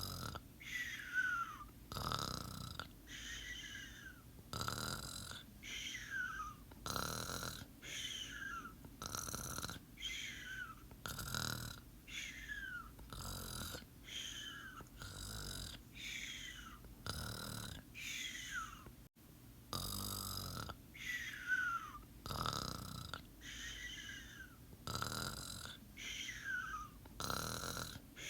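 Snoring in sleep with a whistle on each breath. Every two seconds or so a rough snore is followed by a thin whistle that falls steadily in pitch, over and over.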